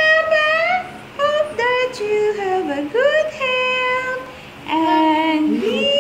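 A woman and children singing together in sustained sung phrases, with short breaths between them.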